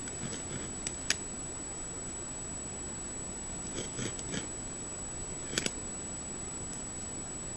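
A beaver gnawing at a chewed-down tree stump: a few short sharp clicks and scrapes of teeth on wood, one about a second in, a small cluster around four seconds and a double click later. They sit over the steady hiss and high whine of a trail camera's microphone.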